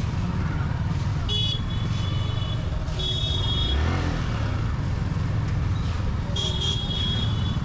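Steady low road and wind rumble from riding in traffic, with high-pitched vehicle horns honking three times: briefly, again about three seconds in, and longer near the end.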